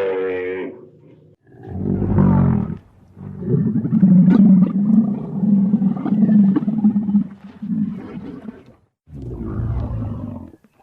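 Sound-effect animal calls voiced for Camelops, an extinct North American camel: a short deep throaty call, then a long pulsing call lasting about five seconds, then a shorter one near the end.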